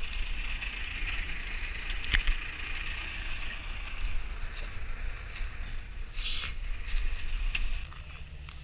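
Footsteps rustling through dry leaf litter and grass over a low, steady rumble, with a sharp click about two seconds in.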